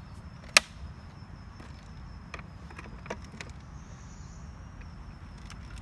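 A plastic bottle being handled and set down on gravel: one sharp loud click about half a second in, then a few lighter clicks and taps. A steady high insect trill runs underneath.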